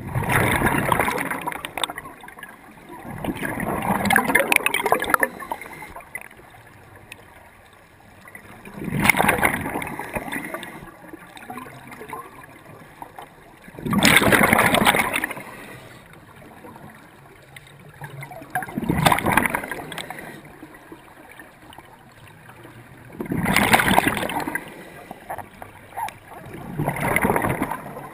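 Scuba regulator breathing underwater: a gurgling rush of exhaled bubbles about every four to five seconds, seven times, with quieter water noise in between.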